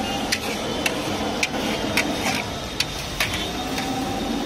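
Long metal spatula clinking and scraping against a large wok as chowmein noodles are tossed, a sharp clink about every half second, over a steady hiss.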